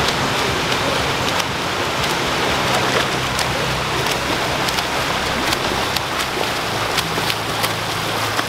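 Several swimmers splashing as they sprint in adjacent pool lanes: a steady wash of churning water with scattered sharp slaps, over a low steady hum.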